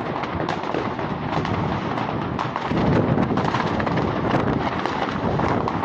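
Many New Year's fireworks going off all around at once: a dense stream of crackles and bangs, with a louder low boom about three seconds in.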